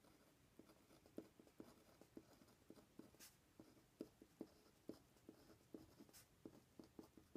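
Uni-ball Vision Fine rollerball pen writing on paper: faint, irregular taps and scratches of the pen strokes as a word is written.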